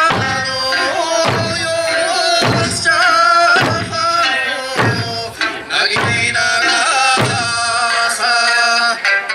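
Okinawan eisaa folk music: a singing voice with drum strikes about once a second.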